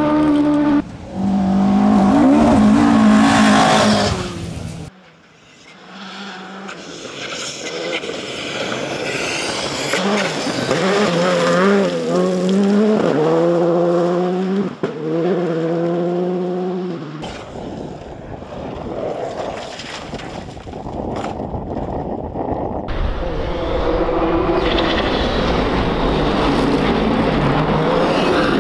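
Rally cars passing at speed one after another on a loose gravel stage, their engines revving hard with the pitch rising and dropping in steps. The sound cuts off abruptly twice, about 5 and 17 seconds in, as one pass gives way to the next.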